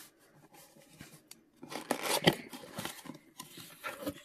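A cardboard mailer box being opened by hand: a few faint clicks, then a burst of tearing and rustling of cardboard and paper starting about a second and a half in, loudest in the middle, as the lid comes open.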